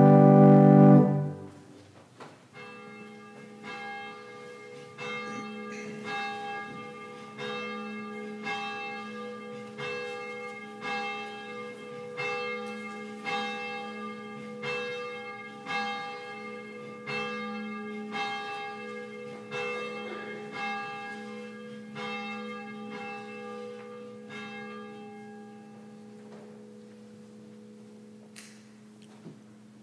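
Church bell tolling: one bell struck about once a second, some twenty strokes, its tone ringing on between strokes and dying away near the end. A loud organ chord cuts off about a second in.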